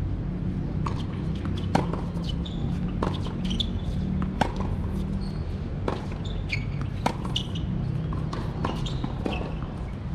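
Tennis rally on a hard court: sharp pops of the ball striking racket strings, alternating with the ball bouncing on the court, about one every second and a half, over a steady low background rumble.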